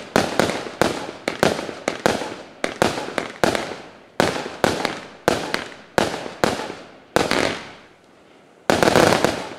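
Multi-shot firework cake firing gold-rain shots with white-flash breaks: sharp bangs about two to three a second, each fading quickly. After a short pause near the end comes a dense burst of rapid shots.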